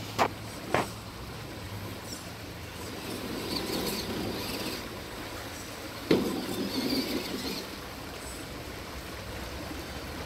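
Vaterra Suburban RC crawler truck climbing a rock step: two sharp knocks near the start, then its electric motor and gears whirring in two short bursts, the second one starting with a knock about six seconds in.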